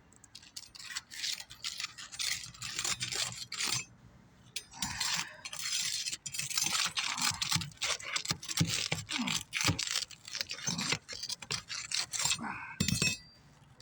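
Pry bar working under asphalt shingles to break their sealed tabs loose: an irregular run of scraping, crackling and tearing with a short pause partway through. The cold, granule-worn shingles are cracking a little as they are lifted.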